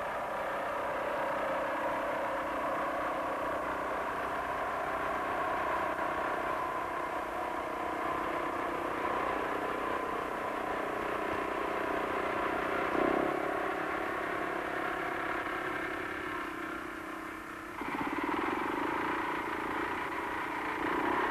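Hanomag R12 tractor's single-cylinder two-stroke diesel running steadily under load while mowing grass with a finger-bar mower. The sound changes abruptly about eighteen seconds in.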